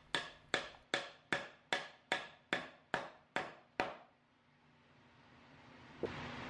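Wooden mallet driving a 3/8-inch oak dowel into a hole in the edge of oak plywood: about ten sharp wooden knocks at a steady pace of roughly two and a half a second, stopping about four seconds in.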